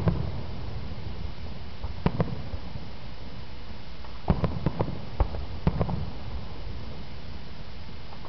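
Aerial firework shells bursting with sharp bangs: one at the start, another about two seconds in, then a quick cluster of bangs and pops between about four and six seconds in.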